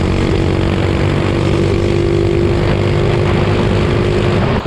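Minibike engine running steadily at constant revs, then dropping off suddenly near the end to a lower, pulsing beat as the throttle is let off.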